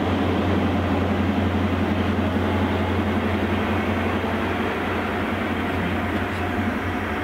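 GWR class 43 HST power car's V16 diesel engine and the train's wheels, a steady low drone that fades slowly as the train draws away.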